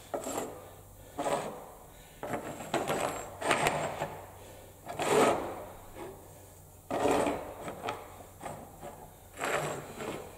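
Irregular scraping and rubbing strokes of hand work on a workpiece: about six separate strokes, some short and one longer run.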